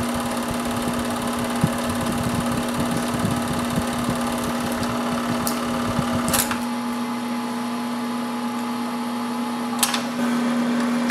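Film projector running: a steady motor hum with a fast clattering rattle from the film mechanism. About six and a half seconds in the clatter stops with a click, leaving the hum alone, and another click comes near the end.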